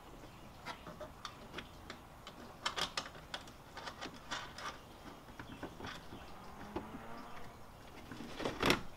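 Scattered irregular clicks and light knocks as a new BMW E46 M3 taillight housing is worked into place and its mounting fasteners are tightened from inside the trunk. The loudest knock comes near the end.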